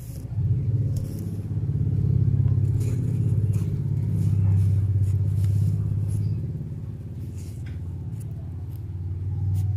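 A kitten purring close to the microphone: a steady low purr, strongest through the first six seconds and softer near the end, with a few faint light clicks.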